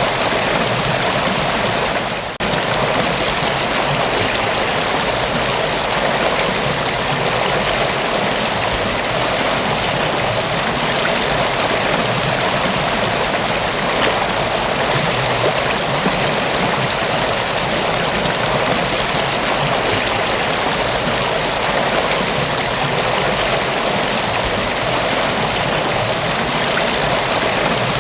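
Mountain waterfall rushing steadily, a dense, even wash of falling water, with a brief dip in level about two seconds in.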